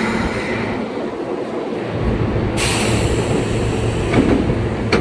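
Running noise inside an Osaka Metro 20 series subway car: a steady rumble of wheels on rail, with a faint wheel squeal at the start. A deeper low rumble sets in about two seconds in.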